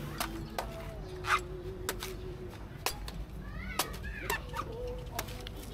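A large chopping knife striking the husk of a young green coconut as it is trimmed: an uneven run of sharp chops, about one to two a second.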